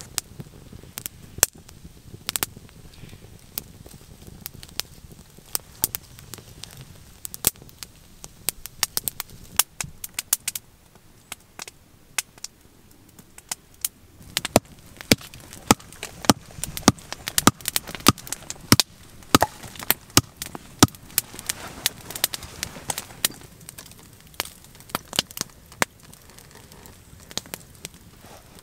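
Wood campfire crackling with irregular sharp pops, busier in the middle stretch.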